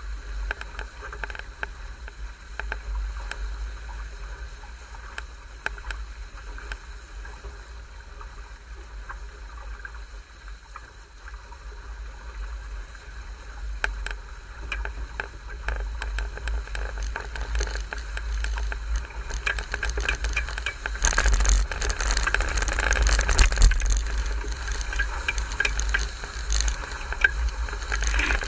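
Water rushing and spraying along the hull of a Gypsy sailing dinghy at speed on a fast reach, with wind buffeting the microphone and scattered small splashes and ticks. The rush gets clearly louder about three-quarters of the way through as the boat speeds up in a gust.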